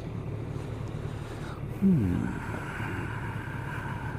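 Kawasaki ER-6n parallel-twin motorcycle running at a steady cruise, heard from the rider's helmet camera with wind noise. About two seconds in there is a brief, louder low sound sliding down in pitch. After it a faint steady whine carries on.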